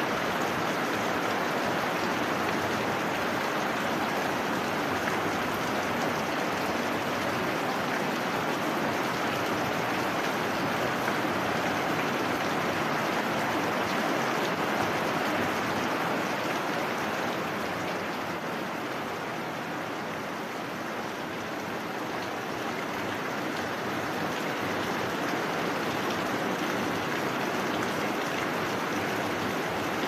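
Steady heavy rain, an even hiss that eases slightly about two-thirds of the way through before building again.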